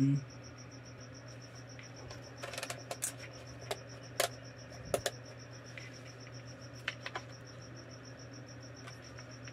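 Scattered light clicks and taps from handling a plastic emergency-light housing and its wiring, a small cluster about two and a half seconds in and single ones near four, five and seven seconds, over a steady high-pitched pulsing trill and a low hum.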